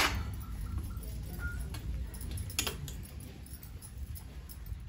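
Stainless steel dishes being scrubbed by hand and handled: a few sharp metal clinks, at the start and about two and a half seconds in, with light taps between, over a low steady rumble.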